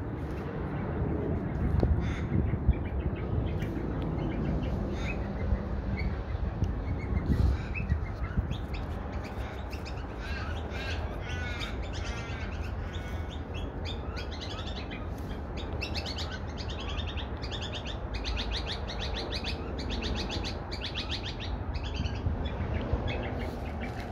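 Australian magpies calling: gliding, warbled notes about ten seconds in, then long runs of fast repeated chattering notes, over a low steady rumble.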